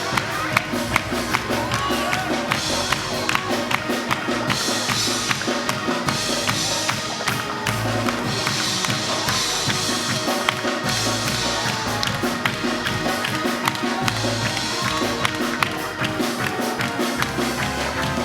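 Live music with a drum kit keeping a steady beat over sustained pitched instruments.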